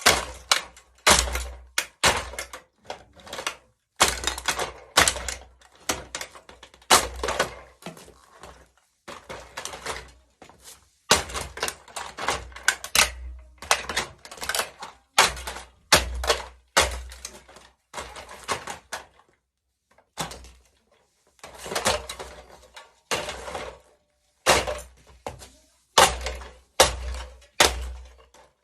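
Plastic remote-controlled toy car cracking and snapping as it is crushed under high heels, in irregular clusters of sharp cracks, many with a dull thud beneath.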